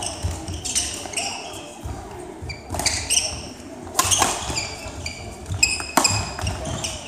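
Badminton rally: sharp cracks of rackets striking the shuttlecock every second or two, with sneakers squeaking on the sports-hall court floor between shots.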